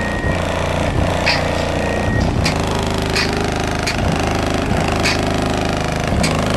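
A rap beat's deep bass notes played very loud through a single 15-inch Avatar STU subwoofer, powered by an Orion 3000-watt amplifier, with a buzzing rattle in the bass. Sharp percussion ticks recur roughly every second above it.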